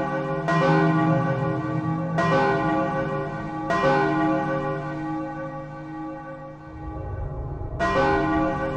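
A large bell struck repeatedly. Three strokes come about a second and a half apart, then a fourth after a longer pause near the end, and each stroke rings on into the next.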